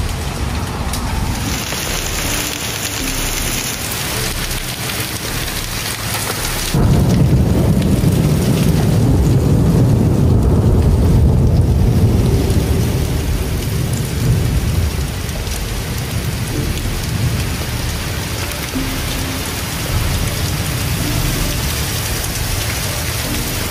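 Heavy thunderstorm rain pouring down steadily. A deep rumble comes in suddenly about seven seconds in and fades over the following several seconds.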